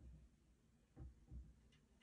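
Near silence with a few faint, soft knocks, two close together about a second in and a light tick near the end: a cat pawing at a wooden cabinet door, the door knocking lightly against its frame.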